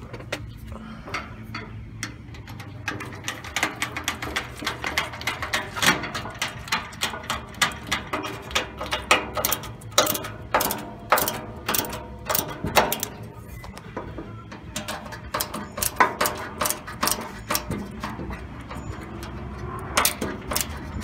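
Ratcheting screwdriver clicking in runs of quick ratchet clicks with short pauses, as it tightens screws into the sheet-metal side of a charcoal grill.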